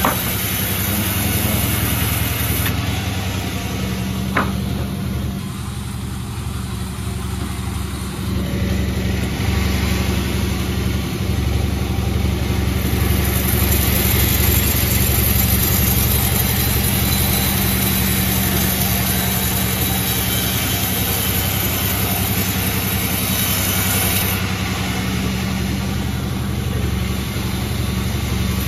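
Sawmill engine running steadily, with a sharp click about four seconds in; the sound eases briefly around six to eight seconds, then picks up again.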